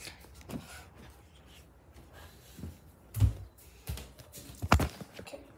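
A few knocks and bumps from handling objects close to the phone, the loudest a low thump about three seconds in and a sharp knock near the end.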